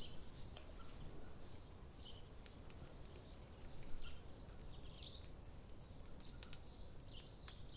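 Faint outdoor ambience: small birds chirping now and then over a low steady rumble, with scattered faint ticks.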